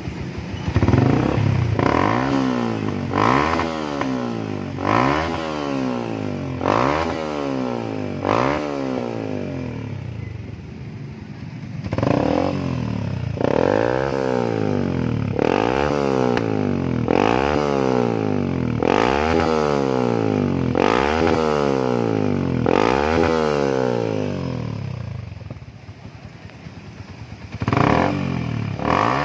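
Yamaha MX King 150's single-cylinder four-stroke engine revved through its stock muffler, which has been gutted and packed with white glasswool for a louder racing note. The throttle is blipped over and over, each rev rising and falling about once every two seconds; it settles briefly to idle near the end, then revs twice more.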